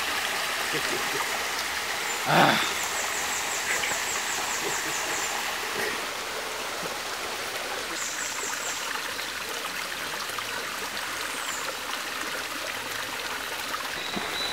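A shallow forest stream trickling and burbling over rocks, steady throughout. A high, rapidly pulsing trill sounds over it for a few seconds early on and again briefly around eight seconds in, and a short louder noise stands out about two and a half seconds in.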